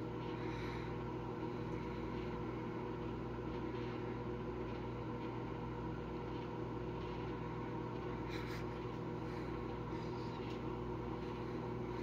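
Frigidaire over-the-range microwave oven running with a steady electrical hum and fan drone while heating food in an aluminum tray, with no arcing or sparking crackle from the metal.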